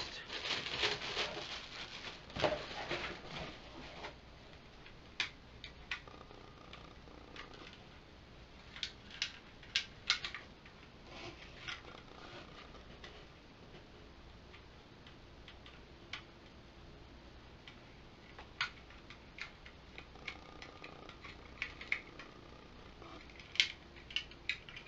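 Plastic bag crinkling for the first few seconds as a toy is unwrapped, then scattered small clicks and snaps as the hard plastic Wildcat Galactic Beast figure is handled and its parts moved.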